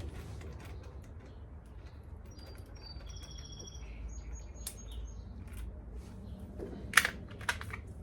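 Small clicks and handling noises of hand work on the motorcycle's wiring, with a sharp metallic clink about seven seconds in and a softer one just after. A few short bird chirps sound faintly in the middle.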